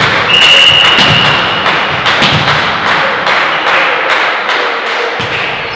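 Fans in a sports hall beating out a steady rhythm, about two to three thumps a second, fading toward the end, with a long whistle blast, about a second and a half, near the start.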